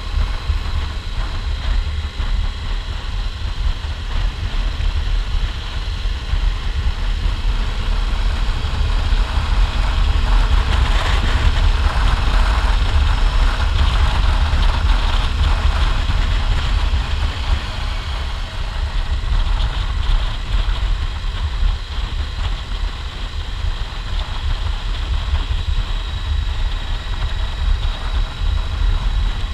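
Motorcycle engine running under way, mixed with wind rushing over the camera's microphone. The wind noise swells louder for several seconds midway through.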